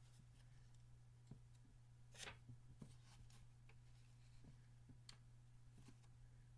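Near silence: room tone with a steady low hum and a few faint clicks and a brief rustle, about two seconds in, from something being handled.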